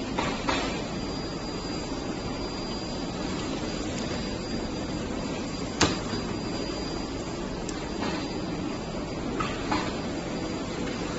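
Steady workshop background noise, with a few light knocks and one sharp click about six seconds in as welding cables and a plastic-wrapped welding gun are set down on a table.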